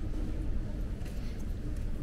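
Subway train running: a steady low rumble with a faint, even hum.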